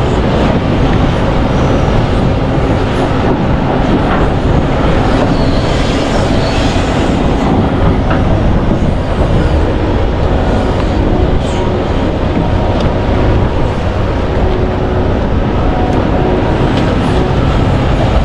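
Komatsu PC1350-11R mining excavator at work: its large diesel engine and hydraulics run steadily under load, with a few sharp metallic clanks now and then.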